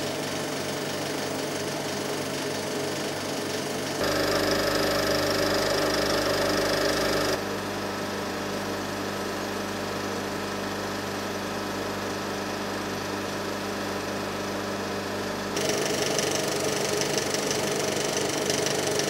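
Cinema film projector running, its film mechanism giving a steady mechanical whirr and clatter. The tone and loudness change abruptly three times, louder for a few seconds after about four seconds in, quieter from about seven seconds, and louder again in the last few seconds.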